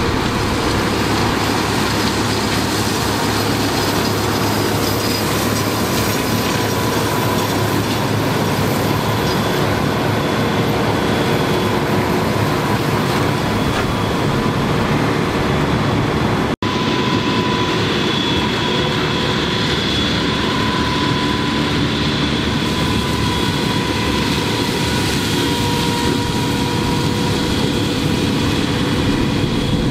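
Fendt Vario 820 tractor running under load with a Dragone Butterfly triple flail mulcher shredding a dry cover crop: a steady, loud mechanical drone with a whine from the machinery. The sound cuts out for an instant a little over halfway through.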